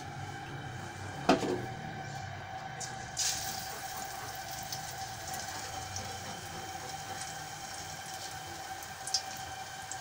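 A sharp knock about a second in, then from about three seconds in, hot ghee sizzling and crackling steadily with scattered pops in an aluminium kadhai as a besan-battered boiled potato (aloo pakora) deep-fries.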